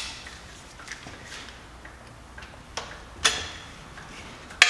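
Scattered metal clinks of a socket and extension bar being handled and seated onto a cylinder head bolt: a few light taps, then two sharp, louder clinks, the second near the end.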